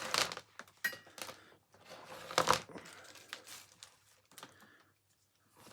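Vacuum cleaner parts being handled and fitted back together: scattered plastic clicks and rustles, with a louder clatter about halfway through, then it goes quiet.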